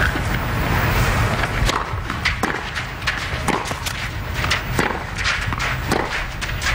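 Tennis rally: a string of sharp pops as the rackets strike the ball back and forth, with ball bounces among them.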